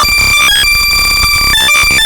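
Very loud, distorted electronic tone sequence made for finding lost AirPods: high steady beeps that switch between a few pitches and are chopped on and off, over a constant hiss.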